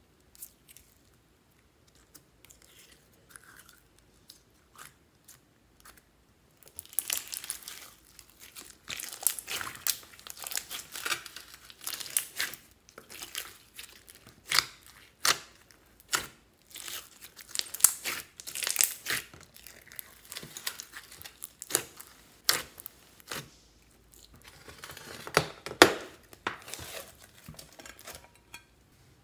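Large mass of mixed slime with foam beads being squished and kneaded by hand, giving a dense run of sticky crackles, clicks and pops as air pockets burst. It is quiet for the first several seconds, then the crackling starts and goes on in bursts, loudest a few seconds before the end.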